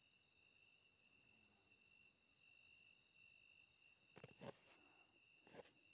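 Crickets chirring faintly and steadily, with two brief soft knocks about four and five and a half seconds in.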